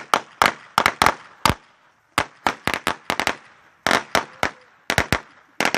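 Firecrackers going off in rapid, irregular clusters of sharp pops, several a second, with brief gaps of about half a second between clusters.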